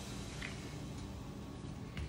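Hands pressing and patting a ball of buttery shortcrust dough on a silicone baking mat: faint, soft squishing with a couple of light taps.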